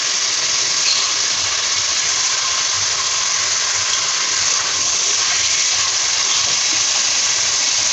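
Chicken pieces sizzling steadily in hot oil, being fried (bhuna) while the meat's own water cooks off.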